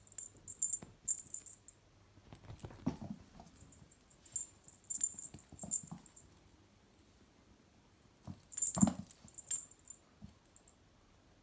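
A kitten playing with a ribbon wand toy: faint, irregular high jingling in short bursts, with soft thumps and rustles, the loudest cluster about nine seconds in.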